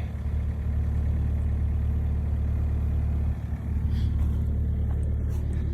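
Excavator engine idling with a steady low drone, dipping briefly about three and a half seconds in.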